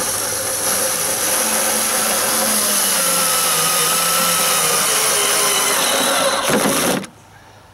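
Cordless drill driving a long screw through a metal bracket into a mailbox post, its motor running steadily with the pitch dropping slightly as the screw bites. It stops abruptly about seven seconds in, once the screw is home in the wood.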